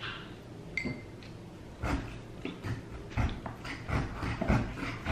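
Close-miked eating sounds: irregular chewing and wet mouth noises over a rotisserie chicken wing, with one short clink about a second in.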